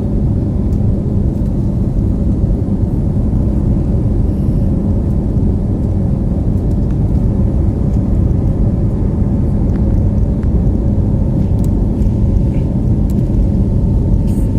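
Airliner cabin during takeoff: a loud, steady low rumble of jet engines and rushing air, with a faint steady hum riding on top.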